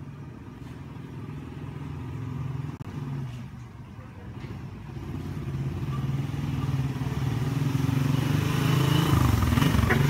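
A motor vehicle's engine running, a low steady hum that grows louder over the second half.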